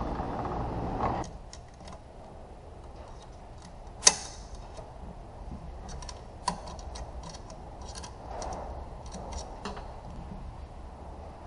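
Small metal transmission parts being handled on a workbench: scattered clicks and light taps, with one sharp ringing clank about four seconds in and a smaller knock a couple of seconds later. A steady rushing noise cuts off about a second in.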